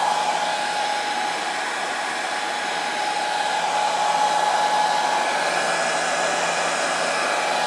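Electric heat gun on its high setting running steadily, blowing hot air over heat-shrink tubing on soldered wire joints to shrink it: a steady rush of air with a constant whine.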